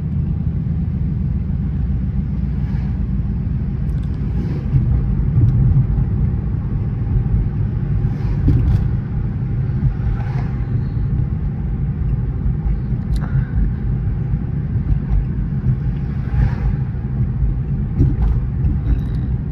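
Car engine and road noise heard from inside the cabin while driving, a steady low rumble with a few faint short clicks.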